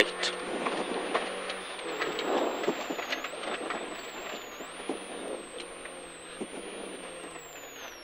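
Rally car at speed, heard from inside the cabin: a steady engine note over road and tyre noise with scattered knocks, and a thin high whine that wavers in pitch.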